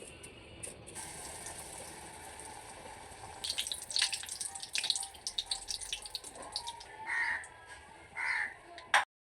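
A crow cawing twice, about a second apart, near the end, after a stretch of irregular sharp crackling or clicking.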